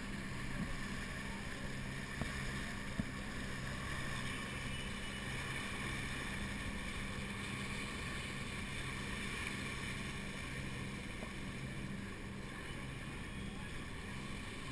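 Water rushing along the hulls of a moving catamaran, with wind on the microphone. Under it runs a low steady hum that fades about two-thirds of the way in, and there are a few faint knocks.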